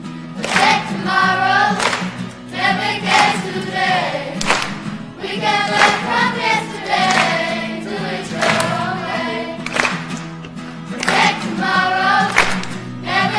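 A children's choir singing together in phrases, over a steady low accompaniment.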